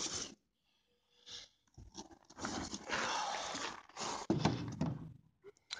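Rustling, crinkling handling noise of packaging as the burner is pulled out and shown, in several uneven stretches after a short quiet start.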